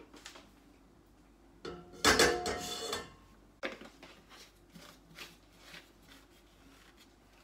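Ladle knocking against a stainless steel cooking pot: a burst of clattering with a ringing tone about two seconds in, then a few lighter taps and clicks.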